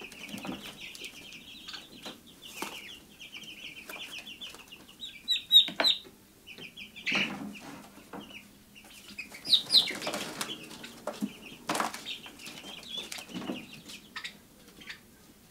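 Young poultry peeping in a rapid run of high notes, with wings flapping and scuffling and the knocks of a wire cage lid as a bird is picked up and moved.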